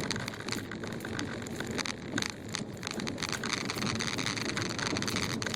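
Car driving over rutted, packed snow, heard from inside the cabin: a steady rumble and crunch of tyres in snow, with frequent irregular knocks and jolts as the suspension bounces over the ruts.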